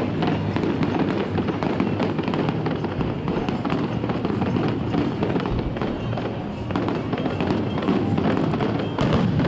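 Aerial fireworks shells bursting one after another in a dense barrage, a strong cluster of bangs near the end.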